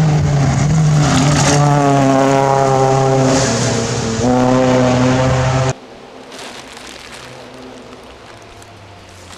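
2002 Ford Focus rally car engine at full throttle on a gravel stage, pitch climbing and stepping with a gear change about four seconds in. The loud engine cuts off abruptly about six seconds in, leaving a faint distant engine.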